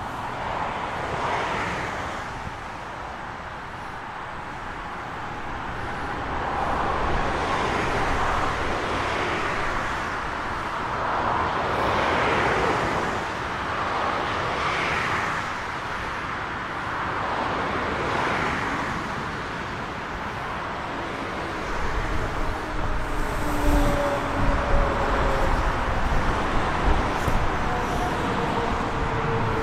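Freight train of hopper wagons rolling past, its wheels running on the rails with a rushing clatter that swells about every three seconds as each wagon goes by. From about 22 seconds in a regional electric multiple unit passes on the other track, adding a heavier rumble and a falling whine from its traction equipment.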